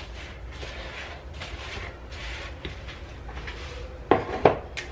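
Kitchen handling sounds: soft scraping and rustling, then two sharp knocks about four seconds in.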